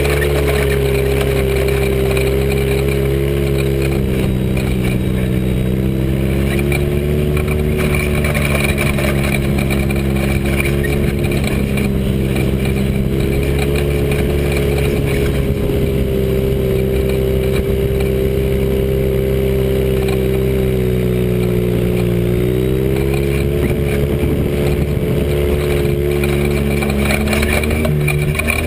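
Joyner dune buggy's engine, breathing through a Weber 45 DCOE carburettor and a home-built big-tube header, running hard under way across sand. Its speed eases off and picks up again a couple of times.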